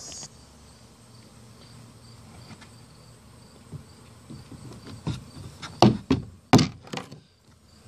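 Plastic deck-plate hatch being pressed down and seated on a bead of glue on a kayak's plastic deck: a handful of dull knocks and thumps, the two loudest near the end. Crickets chirp faintly behind.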